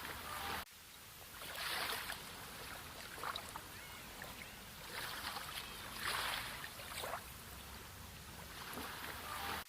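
Sea waves washing in, a steady hiss of water that swells up every second or two as each wave breaks and recedes. The sound drops away abruptly for a moment just under a second in, like an edit splice.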